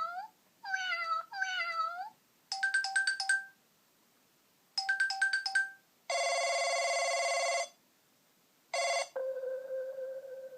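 Ringtone previews playing one after another through the Huawei Ascend Y300 smartphone's single loudspeaker. First three gliding, meow-like calls, then two quick runs of beeps, then a buzzing chord lasting about a second and a half, and finally a chime whose tone rings on and fades.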